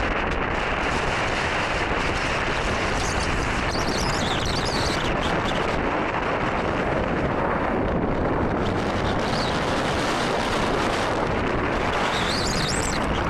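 Strong wind buffeting the microphone: a loud, steady rumble of wind noise.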